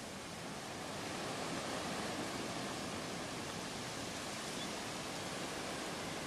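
Blizzard wind blowing in through an open window, a steady rushing noise that swells about a second in and then holds strong as the wind picks up.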